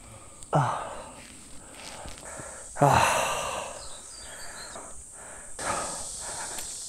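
A hiker's heavy breathing and sighing from the exertion of a hot uphill climb: two loud breathy sighs, about half a second in and about three seconds in, the second the louder. A faint steady high buzz grows stronger near the end.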